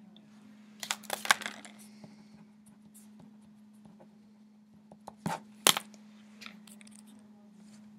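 Small handling noises close to the microphone: a cluster of clicks and rustling about a second in, then two sharp clicks a little past five seconds, over a steady low hum.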